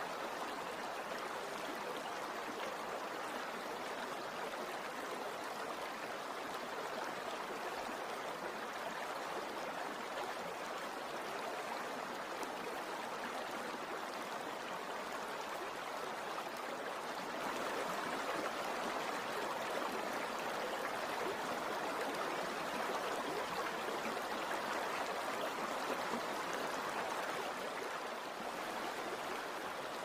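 River water rushing steadily over rocks, an even wash of water noise that grows a little louder past the middle and eases back near the end.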